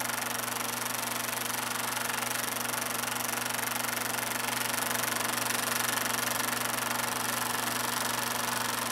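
Film projector running: a steady mechanical whirr with a fast, even chatter of the film being pulled through the gate over a low motor hum.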